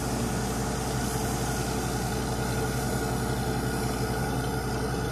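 Borewell drilling rig running steadily: a constant engine drone with an even hiss over it.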